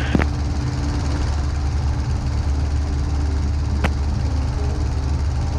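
Steady drone of the 1946 Aeronca Champ's engine and propeller in cruise, heard from the cockpit, with one short click about four seconds in.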